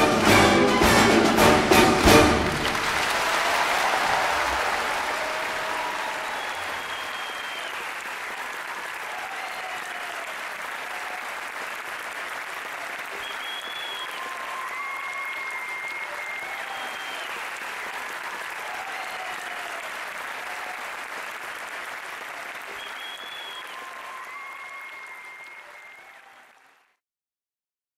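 Orchestral music ends in loud final chords in the first two seconds. A theatre audience then applauds steadily, with a few voices calling out over it, and the applause slowly dies down before cutting off near the end.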